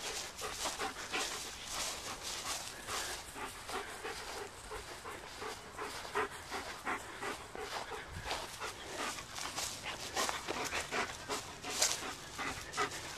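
German Shepherd Dog panting hard in rapid, even breaths, winded after playing fetch.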